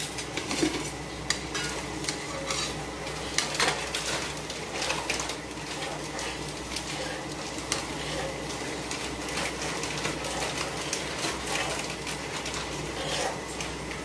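A spatula stirring and scraping besan (gram flour) in ghee in a metal kadhai, with irregular clinks and knocks against the pan that are sharpest in the first few seconds. It is the start of roasting the flour on low heat.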